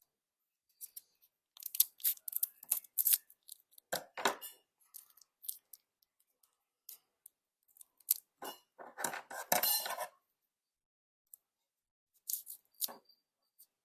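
Stiff plastic packaging on a tub of purple modelling dough being worked open by hand: irregular clicks, crackles and snaps, thickest about nine seconds in.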